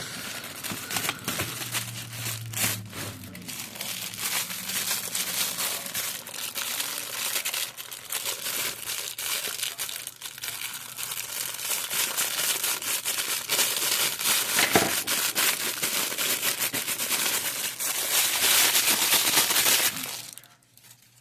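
Plastic action-figure packaging being handled and opened, a steady run of crinkling and crackling with many small clicks, stopping abruptly about a second before the end.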